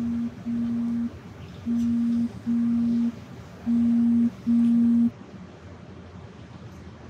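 Mobile phone signalling an incoming call. A low, steady tone comes in pairs of short pulses, about one pair every two seconds, each pair louder than the last, and it stops about five seconds in.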